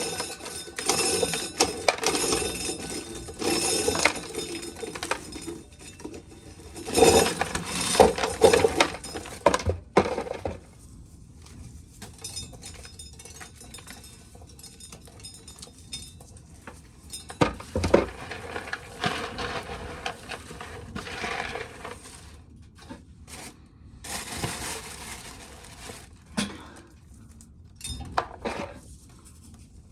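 Dried corn being shelled: hard kernels clattering and clinking into a bucket in uneven bursts, loudest about a quarter of the way in.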